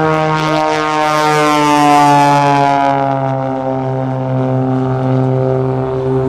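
Single-engine aerobatic propeller plane flying past low, its engine-and-propeller drone sliding steadily down in pitch as it goes by and away. It is loudest about two seconds in.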